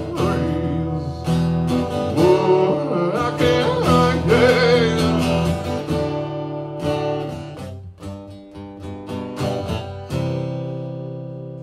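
Live solo performance: a man singing to his own strummed guitar. About ten seconds in, a chord is struck and left to ring, slowly fading.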